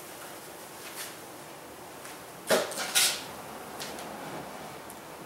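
Two sharp wooden knocks about half a second apart, midway through, as a wooden package of bees is handled against the hive.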